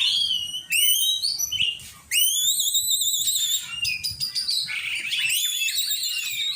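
Oriental magpie-robin (kacer) singing a loud, rapid run of varied whistled and chirping phrases, with a brief pause about two seconds in.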